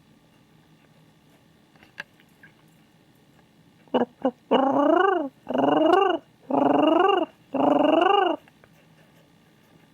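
King pigeon calling: four loud, drawn-out coos in quick succession, each rising and then falling in pitch, preceded by two short sharp sounds.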